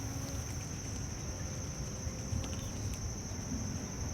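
A steady, unbroken high-pitched insect chorus, with a low rumble underneath and a few faint ticks.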